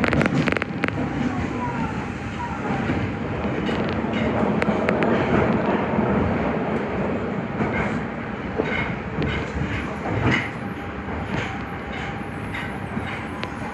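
Nagoya Higashiyama Line 5050 series subway train running, with a continuous rumble of wheels on rail, a faint steady hum, and scattered clicks, several at the start and more in the second half.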